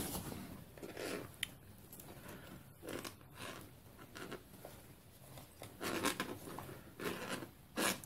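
A hand rubbing and patting over carpet and a plastic chair mat and shifting cables and connectors, with a few light knocks.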